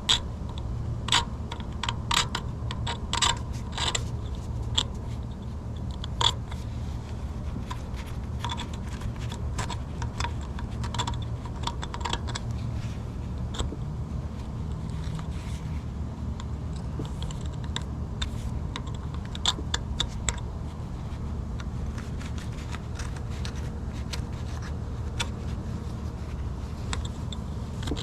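Irregular clicks and short scrapes of a hand tool working on metal, scattered and denser in the first half, over a steady low hum.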